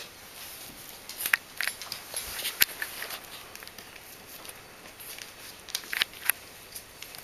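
Bichon Frisé puppy gnawing a knotted rawhide chew: scattered sharp clicks and crackles, in a cluster about a second in and again around six seconds.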